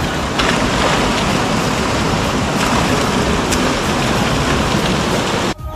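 Steady rush of hot spring water spilling over rocks into a pool. The sound stops suddenly near the end.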